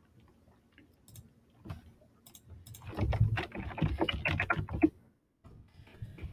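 Typing on a computer keyboard: a few scattered clicks, then a quick run of keystrokes about three seconds in that stops just before the end.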